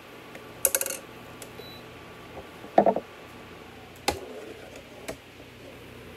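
A serving spoon clicking and knocking against a glass mixing bowl a few times as noodles in cream sauce are stirred, the loudest knock about three seconds in.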